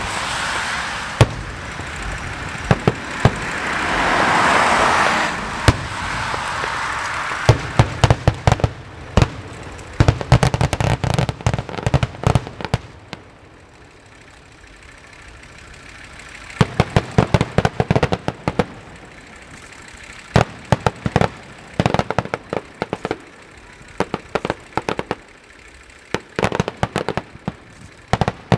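Aerial fireworks display: shell bursts going off with bangs and dense rapid crackling that comes in waves. A loud rushing hiss fills the first few seconds, and there is a quieter lull about halfway through.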